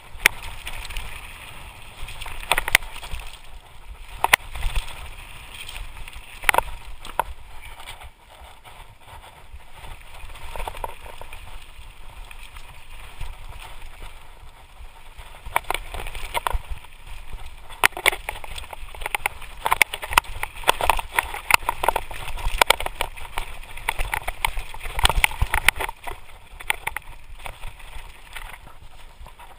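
Lapierre Spicy full-suspension mountain bike descending rocky singletrack at speed: tyre noise over loose stones, a steady rush of air, and frequent sharp clatter and knocks as the bike hits rocks. The clatter eases over a smoother stretch about a third of the way in, then is dense through the rocky second half.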